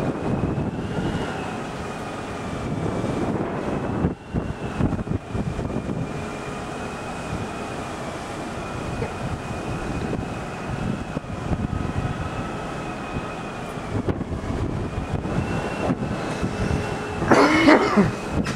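Wind buffeting the microphone on a ship's open deck over the steady low rumble of the ferry King of Scandinavia's machinery, with a faint wavering whine above it. About a second before the end a brief, louder squeal with a bending pitch cuts through.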